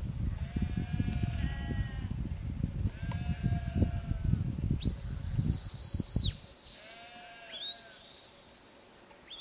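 Sheep bleating repeatedly while a shepherd's whistle gives a sheepdog a long, steady, high note around the middle, then short rising whistles near the end. A low rumble of wind on the microphone runs underneath until the long whistle stops.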